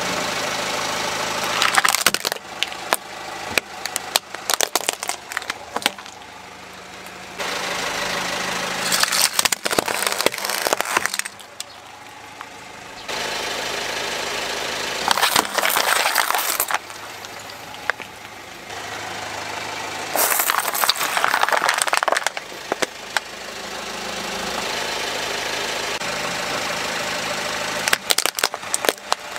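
A car engine idling while a tyre rolls over and crushes plastic toys and plastic bottles of water beads: about six bursts of sharp cracking and snapping, with stretches of just the engine between them and abrupt cuts from one crush to the next.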